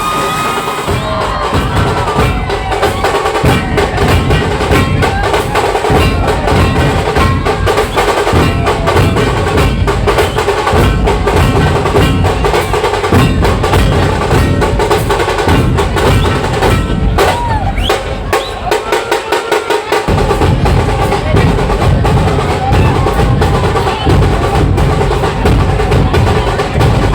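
A procession drum band playing a fast, driving beat, with dense rapid strokes over a deep bass drum and sustained melodic tones. The deep drum drops out for a few seconds several times.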